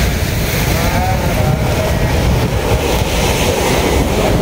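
Wind rumbling on the microphone over the wash of sea surf.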